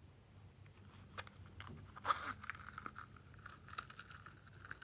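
A silicone pop-it fidget toy being handled and pressed by hand: scattered small clicks and crackles, one louder crunch about two seconds in, then more clicks over a faint thin tone.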